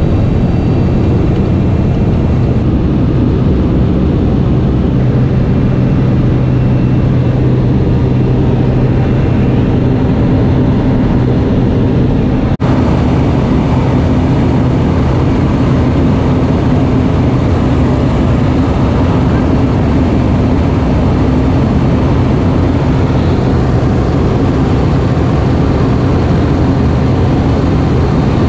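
Small propeller jump plane's engine and propeller droning steadily in the cabin during the climb, with a steady low hum and wind rush, broken once by a brief dropout about halfway through.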